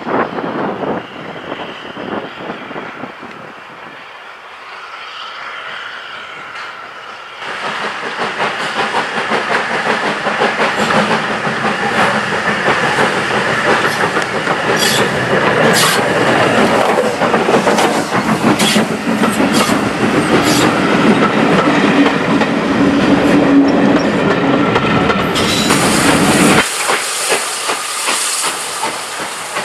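Steam locomotive working a train, with wheels clattering over the rail joints and steam hissing. It gets much louder about a quarter of the way in, and near the end it turns to a brighter hiss of steam.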